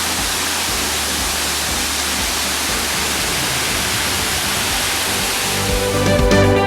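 Waterfall rushing steadily, with background music under it. The music swells up about six seconds in.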